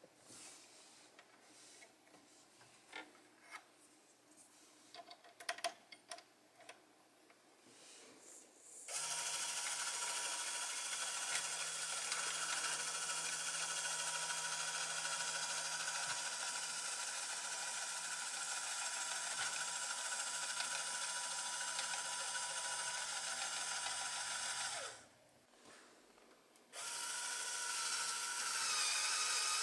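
Small plastic clicks and knocks at first. About nine seconds in, the LEGO Power Functions electric motor driving the flatbed's winch starts with a steady geared whine. It stops briefly near the end, then starts again.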